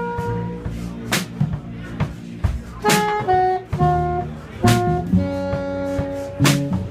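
Live small-group jazz: a saxophone plays a melodic line of held notes over the band's low accompaniment, with a sharp percussive hit about every second and three-quarters.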